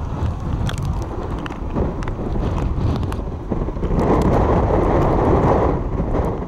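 Wind buffeting the microphone with a heavy rumble, over the wash of storm surf. A louder rush swells about four seconds in and eases off near the end.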